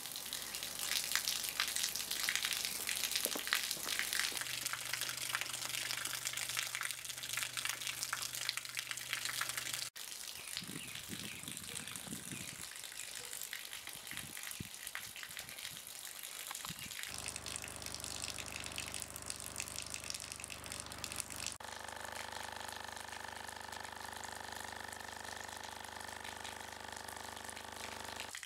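Water pouring from a thin tube and splashing in a steady stream, over a steady electronic hum from the small speaker that shakes the tube with a low tone of about 25 Hz. The hum changes pitch and gets fuller about 17 seconds in and again about 22 seconds in.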